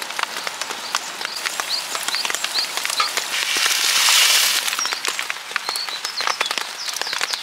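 Steady rain pattering, with a small bird chirping several times in the first half. About four seconds in, a brief hiss as dried scorched rice is poured from a plastic bag into a pan of boiling water on a gas stove.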